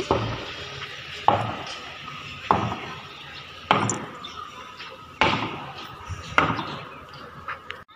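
A series of sharp knocks or blows: six evenly spaced strikes about a second and a quarter apart, each dying away quickly.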